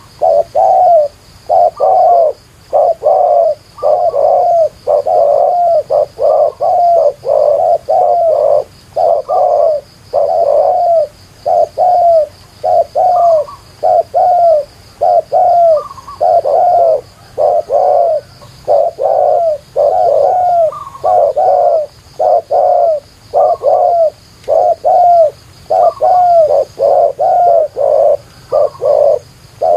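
Spotted doves cooing: a near-continuous run of low coo notes, about two a second, broken only by short pauses.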